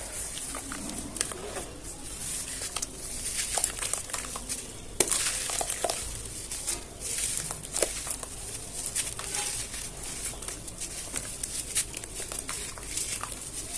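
Chunks of cement and sand being crumbled by hand: a continuous gritty crackle of crunches, with sharp little snaps every second or so.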